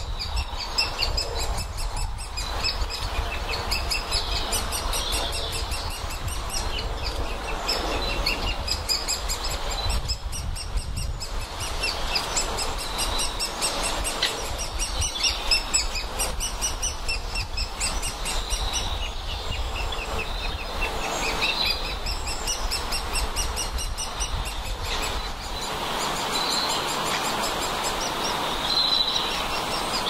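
Great spotted woodpeckers calling: a rapid, continuous run of short, high chirping notes, over a steady low rumble.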